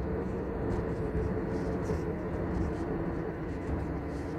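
Steady road and engine noise inside a moving car, a low rumble with a faint even hum.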